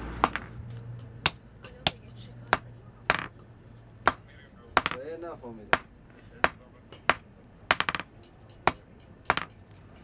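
Blacksmith's hand hammer striking a red-hot iron bar on an anvil: about a dozen sharp, ringing blows at a steady pace of roughly three every two seconds, with a quick run of blows about three quarters of the way through.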